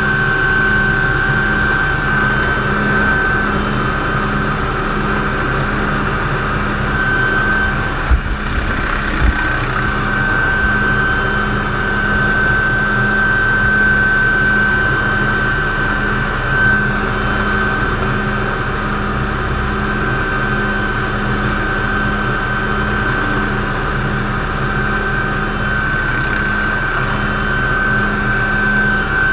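McDonnell Douglas MD500C (Hughes 369HS) helicopter heard from inside the cockpit in flight: the steady high whine of its Allison 250 turboshaft over the drone of the rotor and gearbox. A couple of brief low knocks come about eight and nine seconds in.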